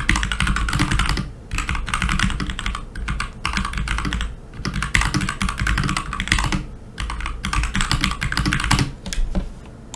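Typing on a mechanical keyboard with Kailh Box Pale Blue switches whose click bars have been repositioned so they no longer click. It makes a rapid patter of keystrokes with a few short pauses.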